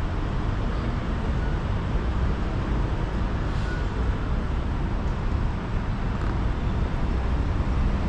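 Steady road-vehicle noise: a continuous low rumble with an even hiss, without any distinct events.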